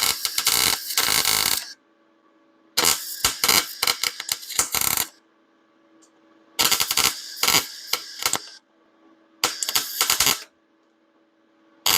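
Wire-feed welder arc crackling and sizzling in short bursts of one to two seconds, five of them with brief pauses between. The pulses keep the weld from burning through the thin bed-frame steel. A faint steady hum runs under the pauses.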